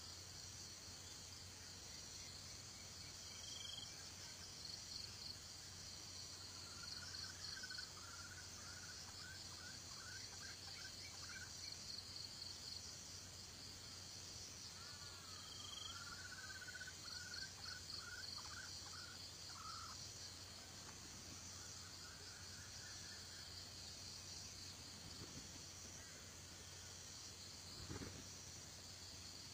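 Faint, steady pulsing insect chorus of crickets or cicadas. Over it come two stretches of faint, rapid chirping bird calls in the middle, and a single soft knock or rustle near the end.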